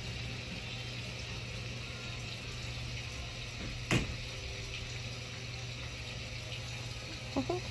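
Motorized curtain track running with a steady whirring hiss and low hum as the curtains draw closed. A single sharp click about four seconds in.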